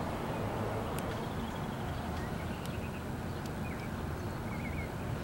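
Steady low outdoor rumble, with a few faint clicks and some short high chirps near the end.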